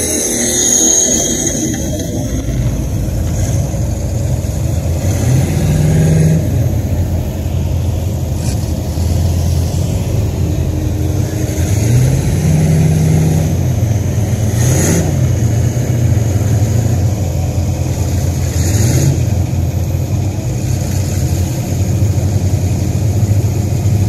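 A lifted mud-bogging pickup truck's engine running steadily, revving up and back down several times as it drives through the mud and water.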